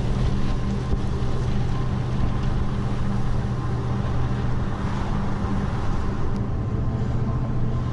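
A car driving, heard from inside the cabin: a steady drone of engine and road noise.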